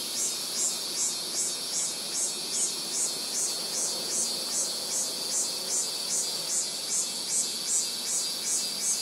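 Insect calling in an even, rhythmic pulse high in pitch, about two to three pulses a second, with no train passing.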